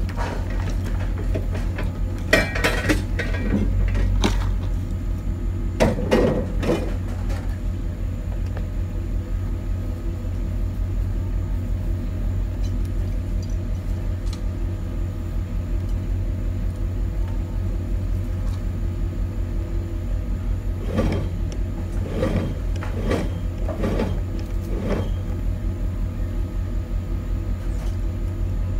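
A large truck's engine idling steadily, its low rumble pulsing evenly, with scattered sharp clanks and knocks: a few in the first several seconds and a cluster about three-quarters of the way through.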